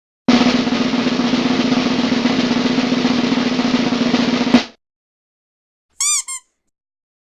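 Snare drum roll lasting about four seconds, ending on a sharp hit. About a second later come two short, high squeaky chirps.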